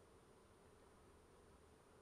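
Near silence, with a faint steady hum of honeybees around an open hive.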